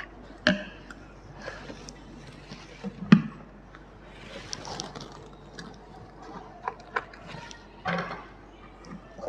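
A plastic bottle being handled and filled with coloured water. There are scattered knocks and clicks, the loudest about three seconds in, and a soft stretch of pouring near the middle.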